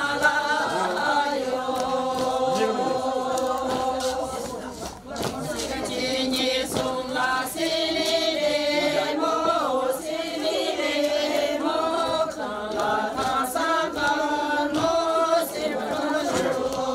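A group of voices singing a Sherpa shyabru song together in long held notes, with a brief break about five seconds in and scattered light knocks.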